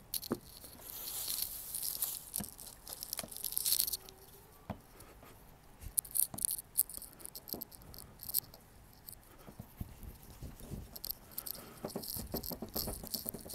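Hands working air-dry clay: a soft rustling for the first few seconds, then light taps and rubbing as a clay coil is rolled under the palms on a board, with a quick patter of strokes near the end.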